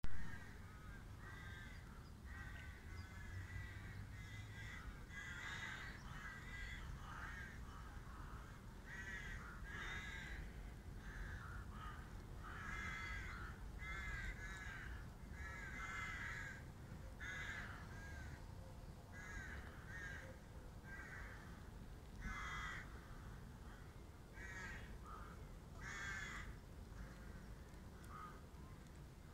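Crows cawing again and again, a harsh call about every second, some in quick runs, over a low steady rumble; a short knock at the very start.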